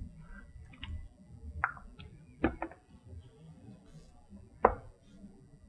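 A few light clicks and knocks, the loudest near the end, from handling a frying pan on an induction cooktop while slices of steamed bun are laid into it.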